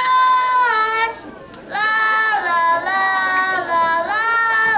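Young children singing a song, holding long notes, with a short break about a second and a half in.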